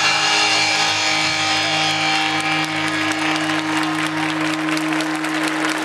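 Dance music ending on a long held chord that thins out, its lowest note dropping away about four and a half seconds in. Audience applause starts under it and grows toward the end.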